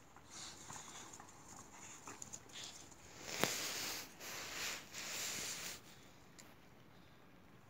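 Two boxer dogs play-fighting over a toy: light scuffling and small clicks, then three breathy, rustling bursts of most of a second each in the middle, with one sharp click at the start of the first.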